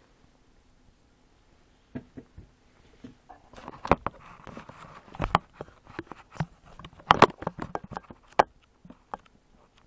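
Camera handling noise close to the microphone: an irregular run of knocks, clicks and rubbing as a hand adjusts the camera on a desk. It starts about two seconds in, is busiest from about three and a half to eight and a half seconds, and has its loudest knocks around four, five and seven seconds.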